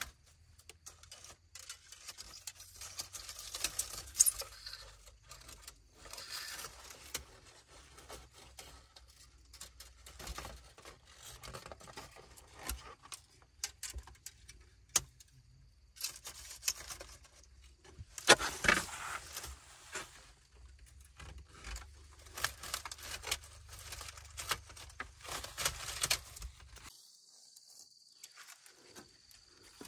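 Irregular clinks, scrapes and rustles of hands-on building work, with a louder clatter about eighteen seconds in.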